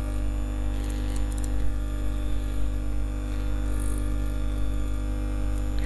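Steady electrical hum with a constant background hiss, the noise floor of the recording setup, with a few faint clicks about a second in.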